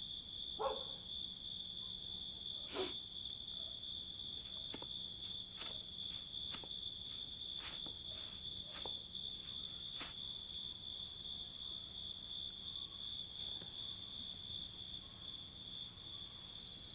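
Crickets chirping steadily, with scattered sharp clicks and light knocks here and there.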